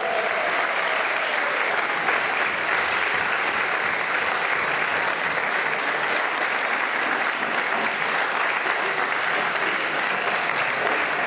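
A crowded audience applauding, a dense and steady clatter of many hands clapping.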